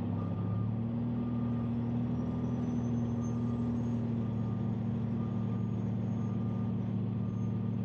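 Dump truck's diesel engine idling steadily as the truck creeps slowly in reverse with the clutch locked, while its backup alarm beeps roughly once a second.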